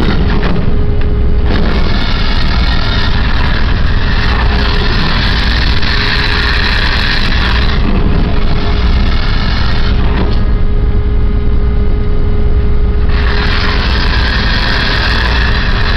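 Ship's mooring winch machinery running with a steady hum and low rumble, a hissing rush coming in from about a second and a half to eight seconds in and again near the end as the winch is worked during berthing.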